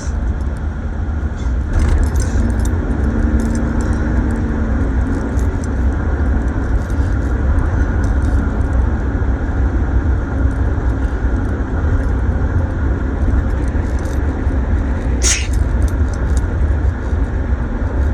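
Car driving, heard from inside the cabin: steady low engine and road rumble. Light clicking and rattling run through it, and there is one sharper click about 15 seconds in.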